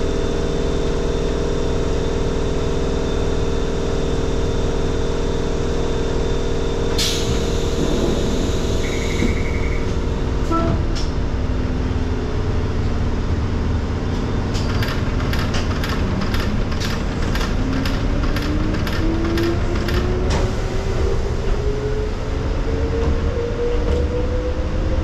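Electric commuter train with a steady hum, then a sudden hiss of air about seven seconds in and a short buzzer tone. It then pulls away: a motor whine rises steadily in pitch while the wheels click rapidly over rail joints for several seconds.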